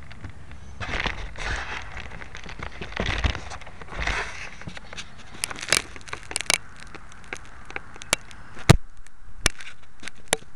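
Handling noise from a small handheld camera: rustling and scraping against its microphone, then a series of sharp, irregular clicks and pops as fingers grip and shift the camera body.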